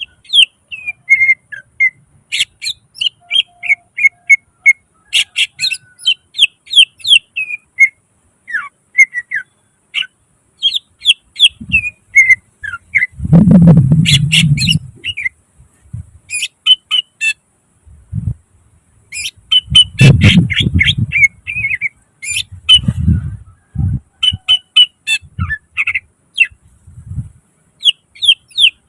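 Green leafbird (cucak ijo) singing loudly in rapid runs of sharp chirps and whistled notes, its song filled out with the mimicked calls of other birds. Loud low thuds break in twice, about halfway through and again a little later.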